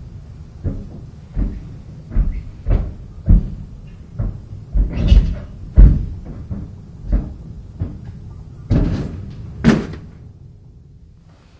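A series of irregular dull thumps and knocks, about one or two a second, like cupboards or doors being banged about in the house, with two longer rattling bangs about halfway and near the end before it dies away.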